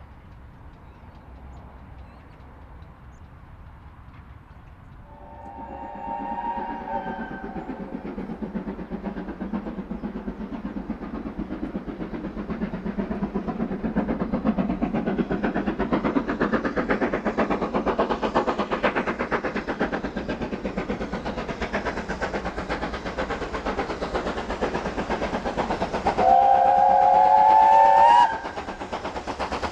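Steam locomotive approaching and passing with its train: a whistle blast of about two seconds some five seconds in, then the rapid beat of its exhaust and wheels growing louder, and a second, louder whistle of about two seconds near the end.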